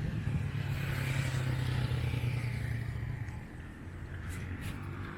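A road vehicle driving past, its sound building up and then fading away about three seconds in.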